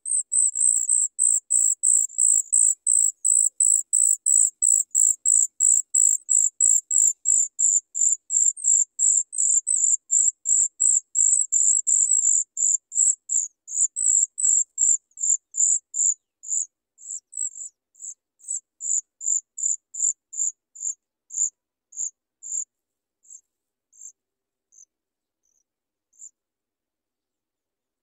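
Chat nestlings begging for food: a fast run of short, thin, high-pitched calls, about three or four a second. The calls slow and thin out over the second half until only a few scattered ones are left near the end.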